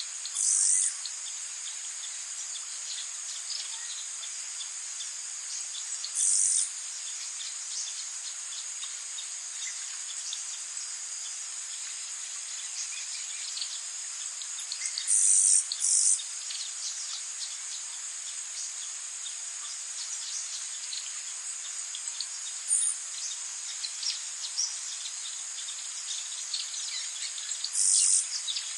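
Forest ambience: a steady, high-pitched chorus of insects, broken every several seconds by a louder half-second buzz, twice in quick succession around the middle. Small bird chirps are scattered throughout.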